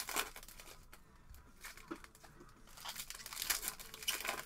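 Foil wrapper of a Panini Prizm retail basketball card pack crinkling as it is torn open by hand, with crinkling near the start, a quieter stretch in the middle, and more crinkling toward the end.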